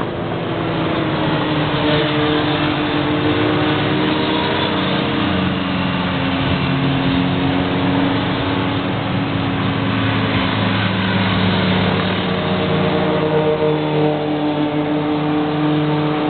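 Several sport motorcycle engines running hard through a bend, their overlapping notes sliding up and down in pitch as the bikes pass.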